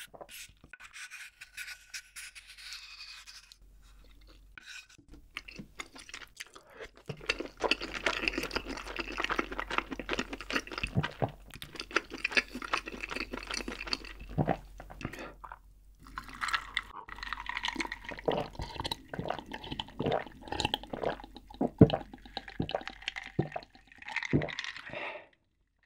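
Close-miked mukbang eating sounds: a wooden spoon scraping the last sauce off a stone plate, then several seconds of wet, clicky chewing. Near the end come sips and gulps from a glass jar of iced drink, with sharp clicks and knocks.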